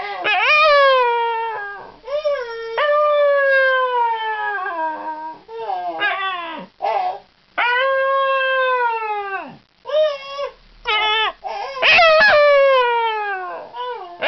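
Scottish terrier howling: a run of about nine wavering howls, most one to two seconds long, each sliding down in pitch at its end, with short breaks between them.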